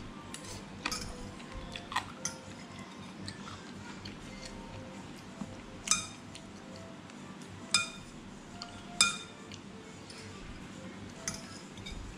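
Metal spoon and fork clinking against ceramic plates and a bowl during a meal: about eight separate sharp clinks with a brief ring, the loudest about six, eight and nine seconds in.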